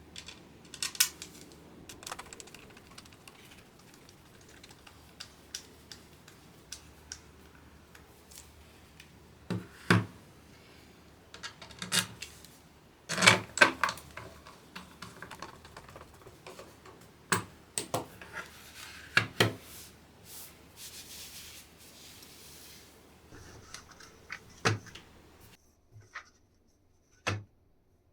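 Irregular sharp clicks and clacks of a hand-built split keyboard's small plastic parts being handled and pressed, loudest a little past the middle, with a brief hiss about two-thirds through.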